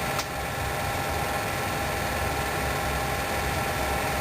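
8mm film projector running steadily: a continuous motor hum and mechanical clatter from the film transport.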